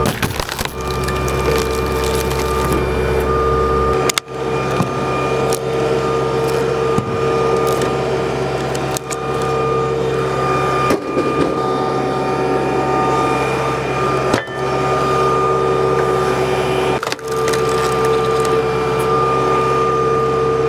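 A Kubota tractor engine runs steadily and drives the hydraulics of a three-point log splitter with a steady whine, while big logs are forced onto the wedge, the wood cracking and splintering apart. The steady running breaks off abruptly a few times.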